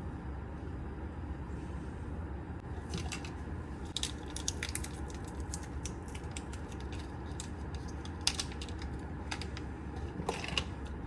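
Scattered light clicks and small knocks, like small hard objects being handled, over a steady low hum.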